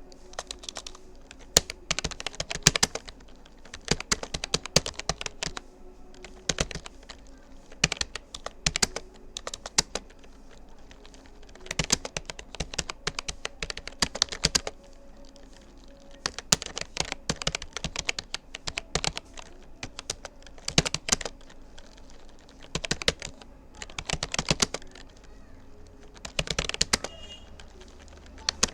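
Fast typing on a Rapoo computer keyboard: runs of key clicks in bursts of a second or two, broken by short pauses.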